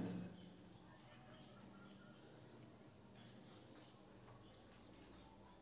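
Near silence, with a faint steady high-pitched chirring in the background.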